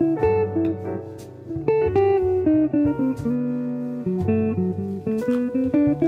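Background music: guitar playing a melody of quick plucked notes.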